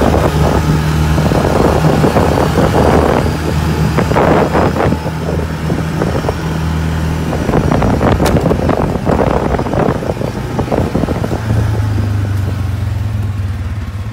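ATV engine running steadily while riding a dirt trail, with irregular bursts of noise over its note. About three-quarters of the way through, the engine note drops and settles into a lower, steady sound like idling.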